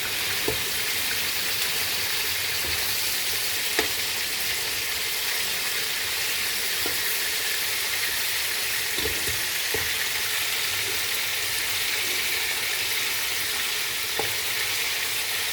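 Chicken pieces coated in chilli-garlic paste frying in hot oil in a pan, a steady sizzle with a few sharp clicks now and then.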